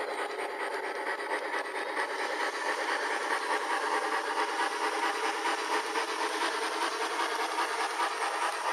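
G-scale model Shay locomotive running along garden-railway track toward the microphone, a steady mechanical running noise that grows slowly louder as it approaches.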